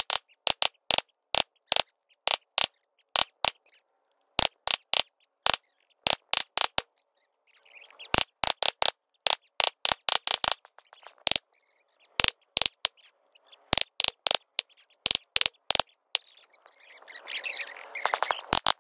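Rifle and pistol gunfire, fast-forwarded so the shots come as a quick, irregular run of short sharp cracks, several a second, thin and without low end.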